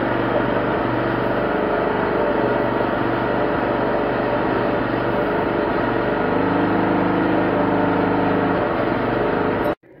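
Steady machine running noise with a low hum whose pitch shifts about six seconds in; it cuts off suddenly near the end.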